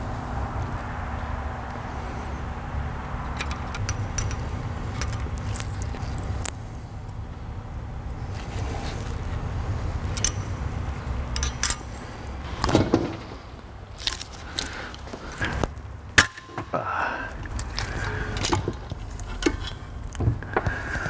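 Small metal clicks and clinks of a valve spring compressor, retainer and keepers being worked on a cylinder head to fit the valve keepers, over a steady low hum. There is one sharp click about three-quarters of the way through.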